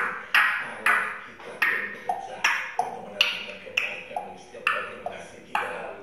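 An African grey parrot making a quick series of sharp clicking pops, about two a second. Each pop rings briefly, and the pitch varies from one to the next.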